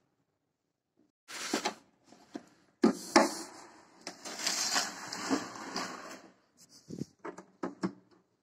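Wire rabbit cage with a plastic base being handled: rattling, knocking and scraping. It starts about a second in, and is densest in the middle.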